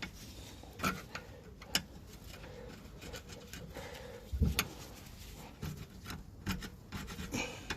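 Scattered light clicks and knocks of metal tools and parts being handled while working on a car's lower suspension arm, with one heavier knock about four and a half seconds in.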